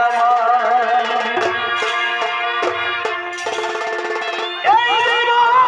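Live chhau dance music: a shehnai-style reed melody with sliding, wavering notes over dhol drumming and deep, irregular drum thumps. A new loud phrase of the melody starts near the end.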